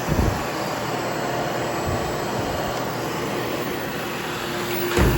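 Hoover HushTone upright vacuum cleaner running steadily over carpet, with a low knock just after the start and another near the end.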